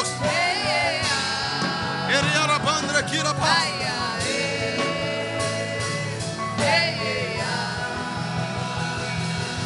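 Worship music: a voice singing long, wavering notes over a steady instrumental backing.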